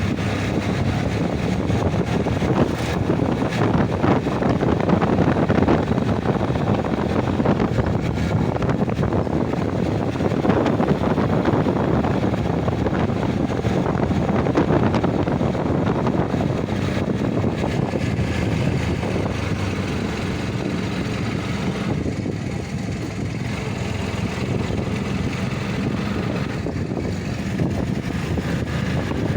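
An engine running steadily under a rushing noise, with a constant low hum; it eases off slightly about two-thirds of the way through.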